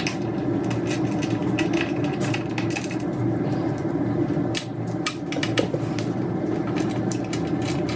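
Light irregular metal clicks and ticks of a magnetic Torx screwdriver turning small screws out, over a steady background hum.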